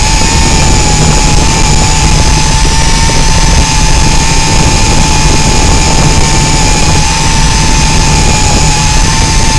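Tarantula X6 quadcopter's motors and propellers whining steadily in flight, heard from a camera mounted on the craft, the pitch wavering slightly, with strong wind buffeting the microphone.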